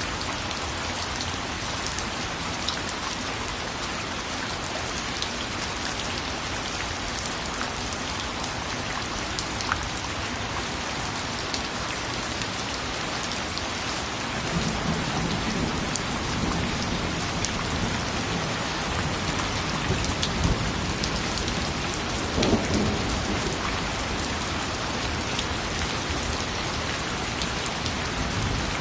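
Steady rain falling on a surface, with low rolling thunder coming in about halfway through and swelling briefly about two-thirds of the way in.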